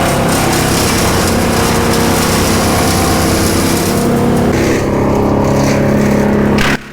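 Chainsaw engine running loud and steady, its note shifting about two-thirds of the way through, then cutting off suddenly near the end.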